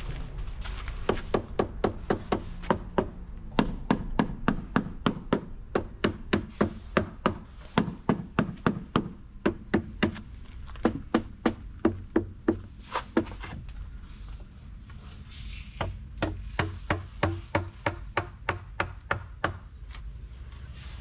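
Hammer tapping quickly and repeatedly, about four blows a second, on a composite mould panel against a cast concrete planter to loosen the mould from the set casting. The blows stop for about two seconds past the middle, then resume.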